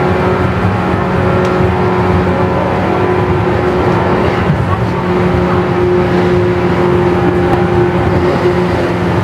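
Interior running sound of a JR 117 series 100-subseries electric train: traction motor hum at a steady pitch over wheel-on-rail rumble while cruising at an even speed.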